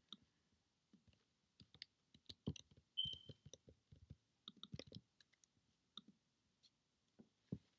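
Faint clicks of a computer keyboard and mouse, in short scattered clusters, with a brief high squeak about three seconds in.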